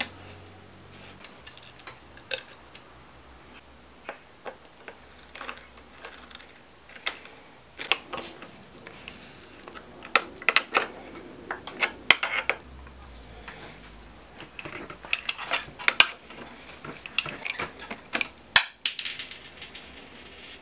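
Hand tools on a bicycle crank: irregular metal clinks, clicks and scrapes as a hex key undoes the crank bolt and a crank puller is threaded in and turned to pull the crank arm off a Bosch mid-drive motor's spindle. The clinks come thicker in the second half.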